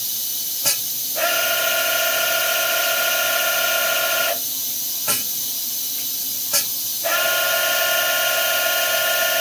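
Nikken CNC rotary table cycling its pneumatic brake over a steady hiss: sharp clicks, with a steady whine of a few seconds starting about a second in and again near the end. The brake engaging and releasing is what shifts the spindle, the issue the owner is chasing.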